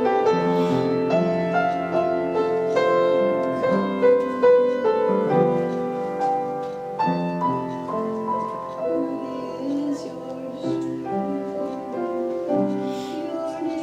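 Keyboard playing slow worship music, held chords that change every second or so.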